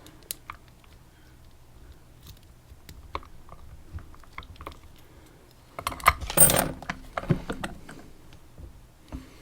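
Small metal parts of a lock and lock-picking tools being handled: scattered light clicks, then a louder clinking rattle about six seconds in that lasts about a second and a half.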